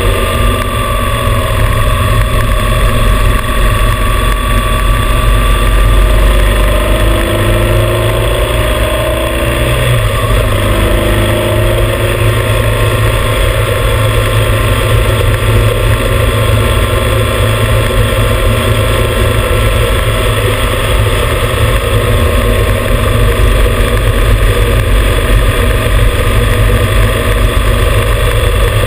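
Motorcycle riding at road speed, heard from a low front mount: heavy wind rumble on the microphone and road noise over the running engine. The engine's pitch shifts briefly about ten seconds in.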